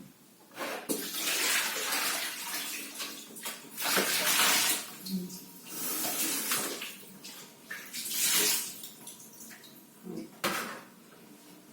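Tap water running and splashing in a sink in uneven surges, about five times, as vegetables are rinsed under it.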